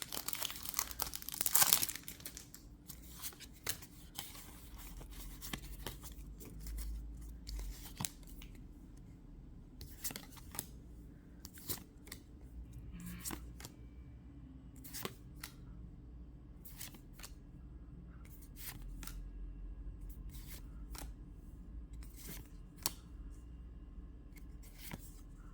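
Foil booster-pack wrapper crinkling for the first two seconds, then a long run of scattered soft clicks and flicks as the trading cards are slid one by one from the back of the stack to the front.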